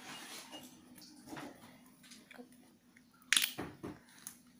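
Handling of a pink plastic-wrapped package: soft rustling, then a sharp crackle of plastic about three and a half seconds in.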